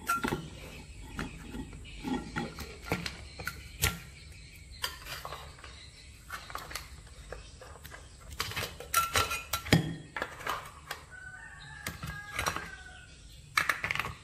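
Scattered clinks and knocks of a bowl and a ceramic plate being handled. Toward the end a chicken calls briefly in the background.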